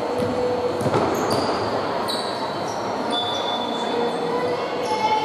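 Indoor basketball play in a large, echoing hall: a ball bouncing on the wooden court and sneakers squeaking in short high squeals, over a haze of voices from the bench and spectators.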